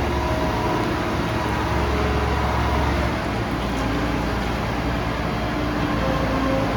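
Yanmar B95W wheeled excavator's diesel engine running steadily, its low rumble easing a little about three seconds in.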